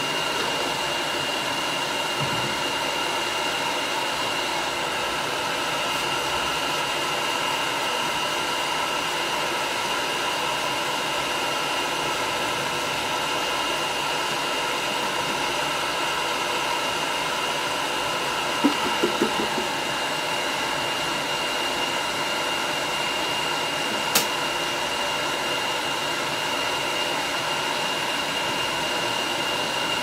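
Hand-held hair dryer running steadily on a chinchilla's fur: an even rush of air with a thin, steady whine. A few brief soft knocks about two-thirds of the way through and one sharp click shortly after.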